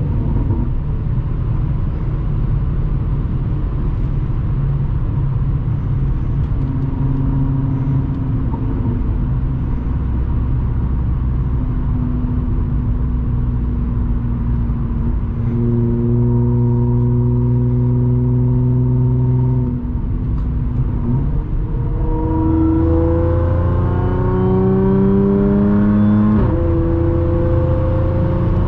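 Audi S4's supercharged 3.0-litre V6 through an AWE exhaust with test pipes, heard from inside the cabin with the windows closed. It holds a steady drone while cruising, then accelerates near the end: the pitch climbs, drops at an upshift, and climbs again.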